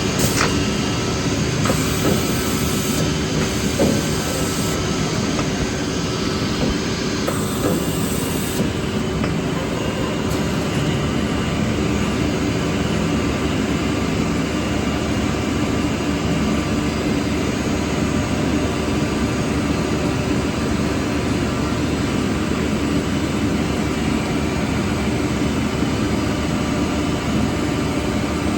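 CNC six-sided panel drilling machine with double drill banks running, a steady dense mechanical din. Three short spells of high hiss come in the first nine seconds.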